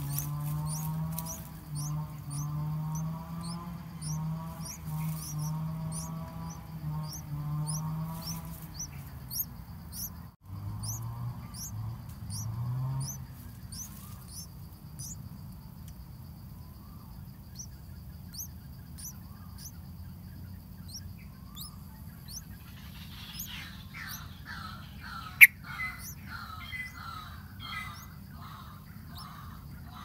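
Bulbul nestling begging with thin, high chirps repeated about twice a second. Past the middle, busier chirping breaks out as the adult yellow-vented bulbul feeds it at the nest, with one sharp click. A low hum runs under the first half.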